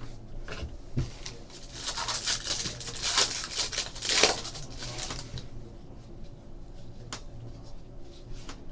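A 2013 Topps UFC Bloodlines trading-card pack being torn open, its wrapper crinkling for a few seconds. After that come scattered light clicks as the cards are handled.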